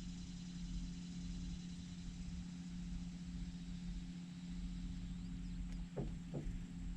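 Steady hum of a small boat motor running, with two brief short sounds about six seconds in.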